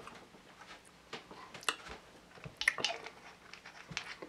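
Soft handling noises: a scattering of small clicks and taps as a glass hot-sauce bottle and a tasting spoon are handled, two of them a little louder near the middle.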